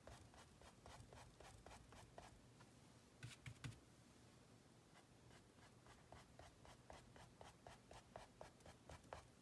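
Faint, quick strokes of a half-inch flat brush flicking acrylic paint across a stretched canvas to make pine needles, about four light brush swishes a second, pausing briefly partway through.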